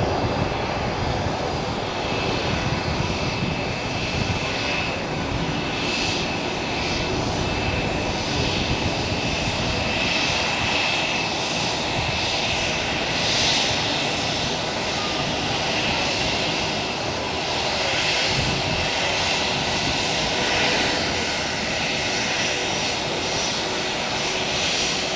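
Airbus A320-232's IAE V2500 turbofan engines running at taxi power: a steady rushing noise with a thin, high, continuous whine.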